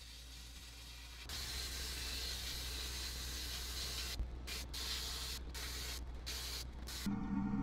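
Sandblaster in a blast cabinet: the gun's steady hiss of air and abrasive starts about a second in against a cast iron coin bank part, over a low hum, and cuts out briefly several times. Music comes in near the end.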